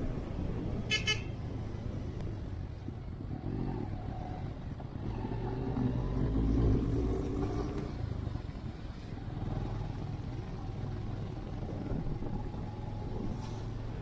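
Motorcycle engine running steadily while riding, with a brief horn beep about a second in. The engine grows louder around the middle as it pulls through a bend.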